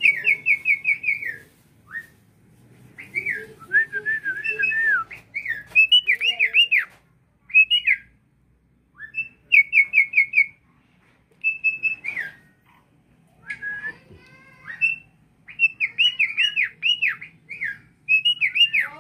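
Starling song: loud whistled phrases of quick repeated notes, falling slurs and looping notes, given in bursts with short pauses between them.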